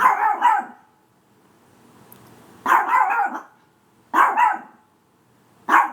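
A dog barking in four short bouts of a few barks each, a second or two apart.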